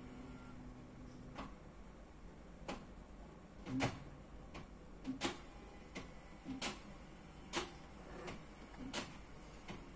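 Sharp clicks, some with a short low knock, coming irregularly about once a second from a Tata Nano's AMT gearshift actuator as it steps through the gears during the gear-learning procedure.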